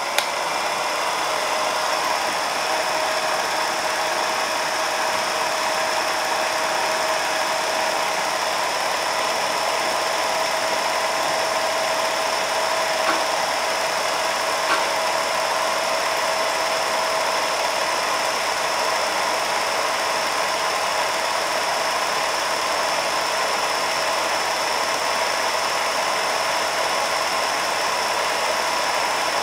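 Film projector running: a steady mechanical whir with a constant high whine, and two small clicks near the middle.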